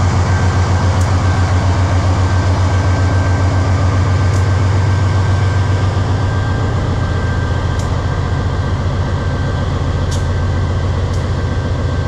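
Diesel-electric helper locomotive at the tail of a loaded iron-ore train, its engine running with a deep, rapidly pulsing rumble as it pulls away, easing a little over the second half. A steady high whine runs alongside, with a few sharp clicks.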